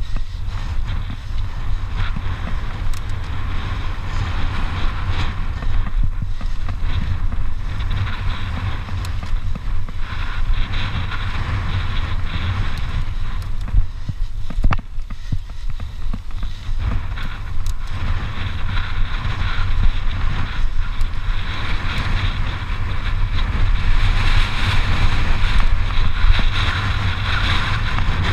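Wind buffeting a GoPro microphone on a mountain bike ridden fast down a dusty dirt trail, over the hiss of knobby tyres on loose dirt and scattered clicks and rattles from the bike. It grows louder near the end.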